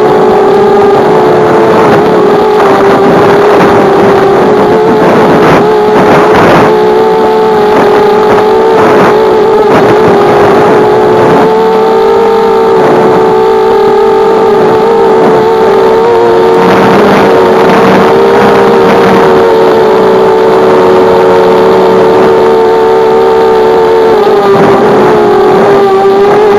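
Electric motors and propellers of an FPV aircraft whining steadily as it flies, the pitch wavering with throttle and dipping briefly near the end.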